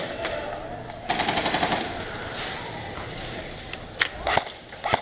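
Airsoft guns firing: a rapid full-auto burst about a second in lasting under a second, then a loud sharp snap near four seconds followed by a few scattered shots.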